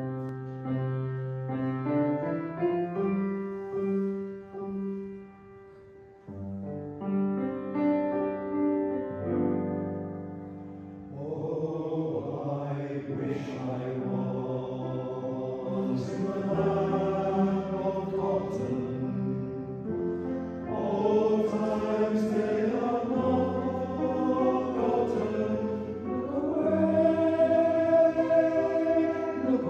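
Male voice choir singing slow, sustained harmony. It starts softly, and the sound fills out and grows louder about eleven seconds in.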